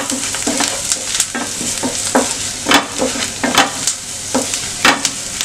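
Onions and spices sizzling in ghee in a non-stick frying pan, with a wooden spatula scraping and stirring them in repeated, uneven strokes over a steady hiss.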